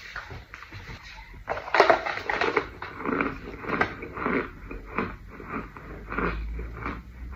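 A bite into a compressed white powder brick: a loud crunch about a second and a half in, then crunchy chewing of the powdery chunk at about two chews a second.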